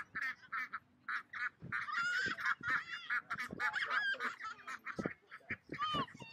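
Young white domestic ducks quacking rapidly and repeatedly, their short calls tumbling over one another, with a few higher sliding calls mixed in, while being herded by a dog.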